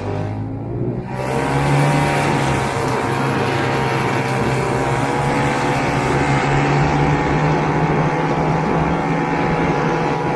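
1969 Ski-Doo Olympique's 320cc single-cylinder two-stroke engine revving up about a second in, then running steadily at speed.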